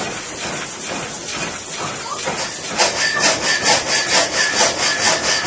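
Water-powered up-and-down sawmill running, its sash-framed blade stroking up and down in a steady rhythm. About three seconds in the blade bites into the log and each stroke becomes a loud rasp, a little over two strokes a second, the saw cutting only on the downstroke.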